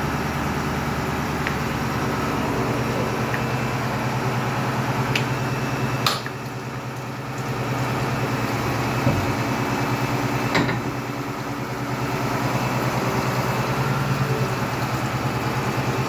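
Engine idling steadily with a low pulsing beat, most likely the 25-ton crane's engine running during the outrigger cylinder repair. A handful of sharp clicks and knocks sound over it, and the engine sound dips briefly after a knock about six seconds in.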